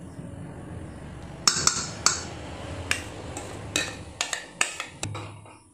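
A steel spoon clinking and scraping against stainless steel bowls as mango pulp is scraped out of one bowl into another. It is a series of sharp metallic clinks, about ten in all, starting about a second and a half in.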